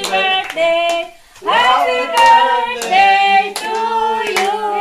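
A group of people singing together while clapping along in time, about three claps a second. The singing and clapping break off for a moment about a second in, then pick up again.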